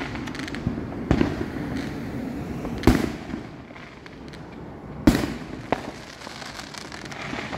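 Aerial fireworks going off overhead: a series of sharp bangs, the loudest about three seconds in and another about five seconds in, with lighter pops and crackle between them.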